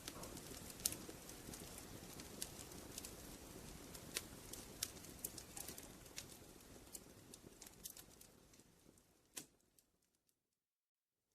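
Wood fire crackling with scattered sharp pops over a low steady hiss, fading away about three-quarters of the way through to silence.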